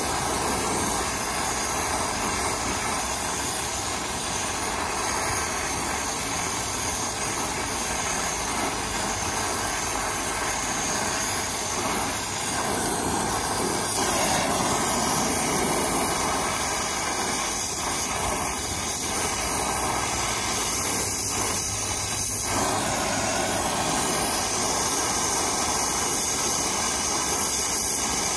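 Brazing torch running with a steady hiss as its flame heats the copper line joints on a new heat pump reversing valve.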